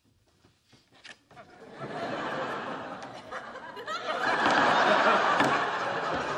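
Sitcom studio audience laughing, building from about two seconds in and loudest near the end; the first moments are nearly silent with a few soft clicks.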